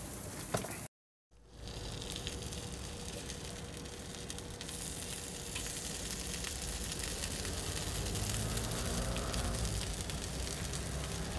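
Batter and filling sizzling steadily in a hot fish-shaped bungeoppang iron, with faint crackles through it. The sound cuts out briefly about a second in.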